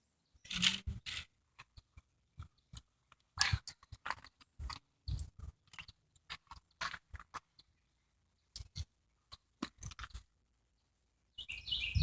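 Irregular crunching and clicking in short scattered bursts, with a bird chirping rapidly near the end.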